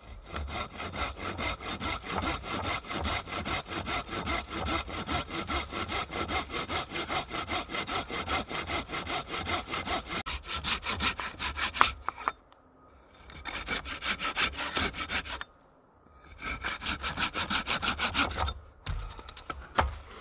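Hand saw cutting wood in quick, even back-and-forth strokes, about three or four a second. One long run is followed by two shorter ones after brief pauses.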